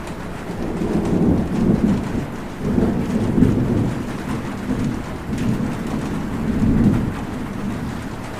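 Steady rain with low rolling thunder that swells and fades several times.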